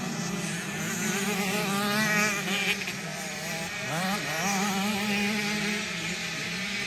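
Motocross bike engines running at high revs, with a buzzing note. The revs climb sharply twice, about two seconds in and again about four seconds in.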